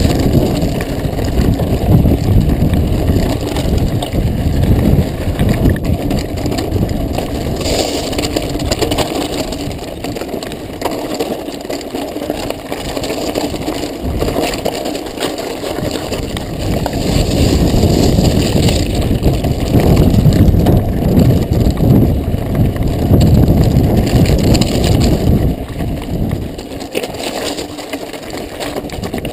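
Mountain bike riding over loose volcanic gravel and lava rock, heard from the bike-rider's action camera: tyres crunching and the bike rattling in a loud, uneven rumble that grows louder for a stretch past the middle and eases near the end.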